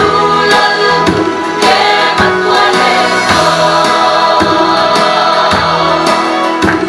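Mixed choir of men's and women's voices singing a Mizo gospel song in harmony.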